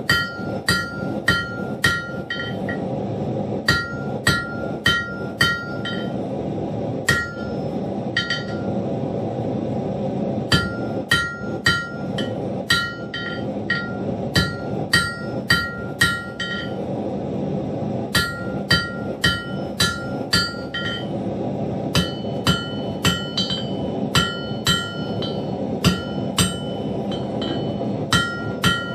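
Blacksmith's hammer striking hot iron on an anvil in runs of quick blows, about two a second, with short pauses between runs; each blow leaves a high metallic ring from the anvil. A steady rushing noise runs underneath.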